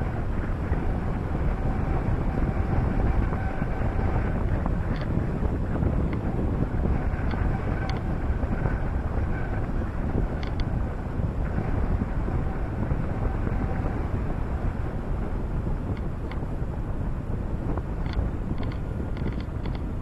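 Steady rush of wind and road noise from a car driving along a paved road, picked up by a camera mounted on its roof, with a few faint ticks scattered through it.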